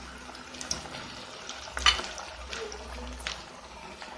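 Bread-and-potato cutlets deep-frying in hot oil in a pan: a steady sizzle with scattered crackles and pops, the sharpest a little under two seconds in.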